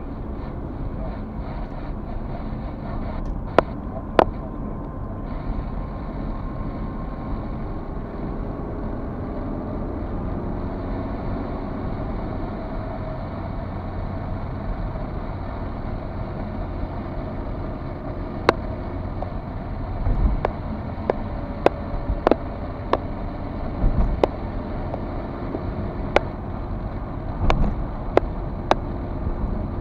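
Steady rumble of a car's tyres and engine heard from inside the cabin while driving. Sharp clicks come twice early on and then repeatedly in the second half, along with a few low thumps.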